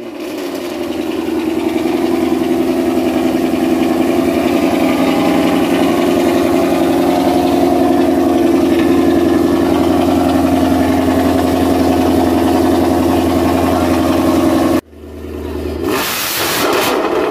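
Car engine idling steadily. After a break, near the end, a short rev with a rush of exhaust noise from a late-model Ford Mustang's exhaust.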